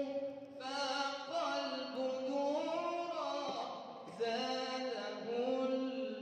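A man singing an Islamic nasheed in praise of the Prophet Muhammad, unaccompanied, in long held notes that glide up and down, with a short break about three and a half seconds in.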